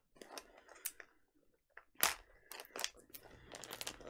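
Hard plastic clicks and crackles as a Mini Brands capsule ball is gripped and twisted open. The loudest snap comes about two seconds in, followed by a quick run of small clicks.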